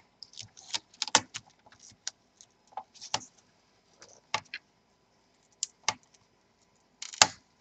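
Light, irregular clicks and taps of fingers unplugging the LCD cable and a second flat cable connector from an Alienware M14x laptop motherboard, with the sharpest click near the end.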